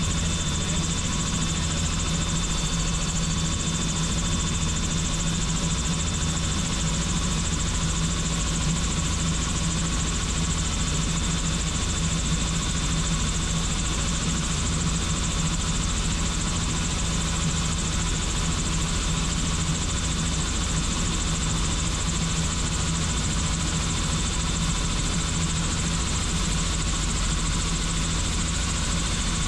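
Helicopter in flight: steady rotor and turbine engine noise with a low hum and a thin, steady high whine over it.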